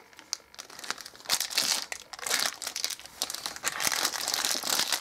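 Crinkly plastic blind bag from an L.O.L. Surprise toy being handled and opened: a dense run of crackling crinkles starting about a second in.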